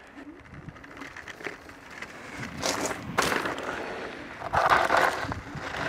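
Varla Eagle One dual-motor electric scooter riding across a grass lawn, tyre and ride noise with two loud rushes of noise, about three seconds in and again around five seconds in.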